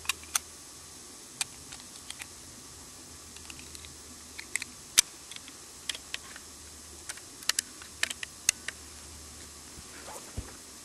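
Irregular sharp clicks of a Tikka M55 rifle being loaded with .243 cartridges and its magazine fitted. A rustle and a soft thump near the end as the shooter goes prone.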